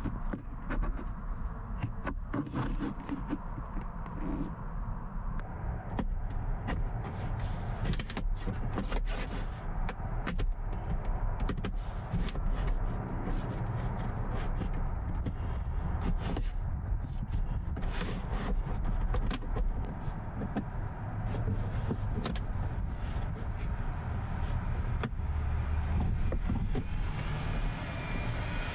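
A plastic pry tool scraping and clicking against the hard plastic of a truck's center console as the panel's clips are pried at, with many irregular clicks and scrapes over a steady low rumble.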